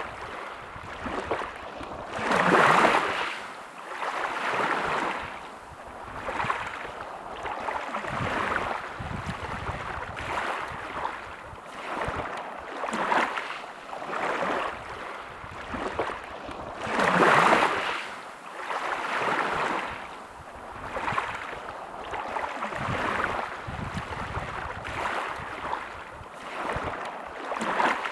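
Small sea waves washing in one after another, a swell of surf about every two seconds, with two bigger waves breaking about three seconds in and again near the middle.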